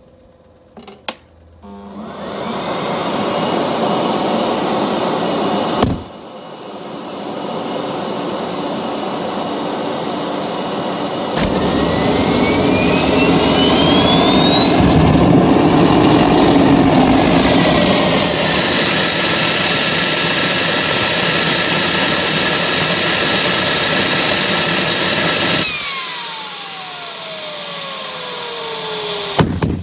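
Homemade gas turbine built from a Holset WH2D turbocharger being run up. First comes a rush of air that cuts off with a thump, then a steadier rush. About eleven seconds in, a louder rumbling rush starts and the turbo's whine rises steadily to a high, steady pitch, holds for several seconds, then falls away as it spools down near the end.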